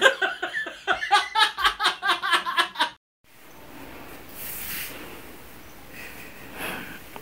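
A person laughing in quick, repeated bursts for about three seconds. It cuts off suddenly, leaving a quiet, steady hiss of room noise.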